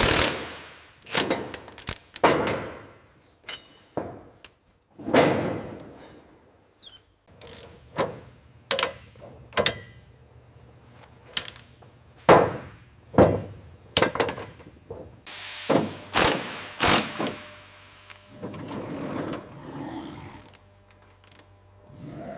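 Tools working on metal parts: a run of separate metallic clanks and clicks, irregular, roughly one a second, each ringing briefly.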